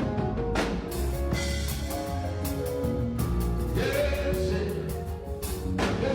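Live gospel praise music: drums playing under sustained instrumental notes, with a voice singing.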